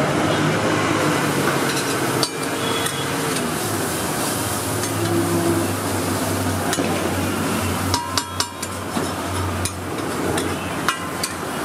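Steel spatula scraping and chopping scrambled egg on a large iron tawa, with sharp metal clicks of the blade against the griddle about eight seconds in and again near eleven seconds, over a steady noise and a low hum.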